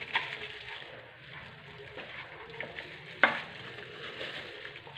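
Faint knife-and-glove handling sounds as raw chicken drumsticks are scored with a knife on a plastic cutting board, over a steady hiss, with one sharp knock about three seconds in.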